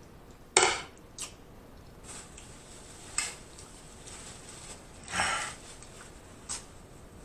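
Close-miked eating sounds: a sharp clink of a metal fork against a glass bowl about half a second in, the loudest sound, then four short wet mouth smacks while chewing, the longest a little past the middle.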